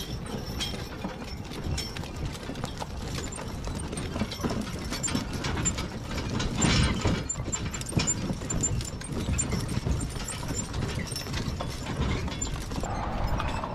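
Mule-drawn wagon on the move: harness chains and metal fittings jingling and clanking, and the wagon's running gear rattling, with irregular clicks and knocks and the mules' hoof falls mixed in.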